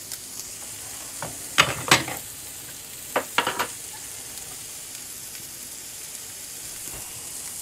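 Chopped sausage and minced onion sizzling steadily in butter in a nonstick frying pan on a gas burner over low heat. Two pairs of sharp knocks come about one and a half and three seconds in.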